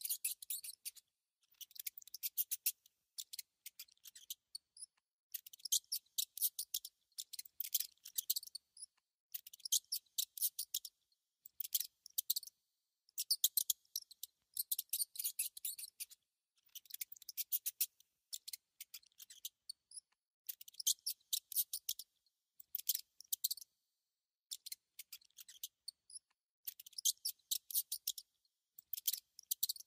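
Mouse squeaking and chittering: rapid, high-pitched clicky squeaks in bursts of about a second, repeating with short silent gaps between them.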